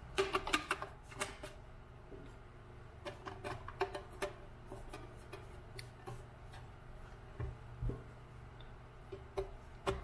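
Scattered light clicks and taps of hands closing the plastic battery door and handling the metal bottom plate of a Cry Baby wah pedal, in a few short clusters.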